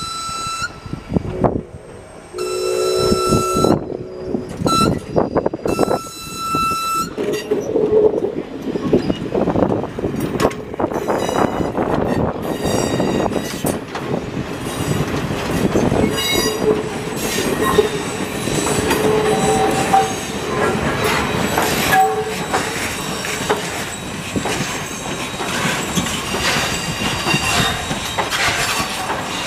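Whistle of Canadian Pacific Railway 136, a 4-4-0 steam locomotive, blowing long, long, short, long, the grade-crossing signal, in the first seven seconds. After that the train rolls by with steady wheel clatter and squealing wheels on the curve.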